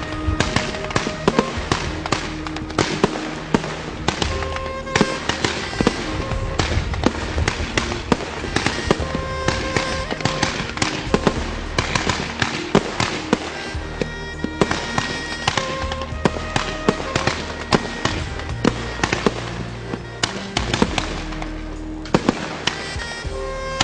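Fireworks going off in quick, irregular succession, a dense run of cracks and bangs, over background music with held steady notes.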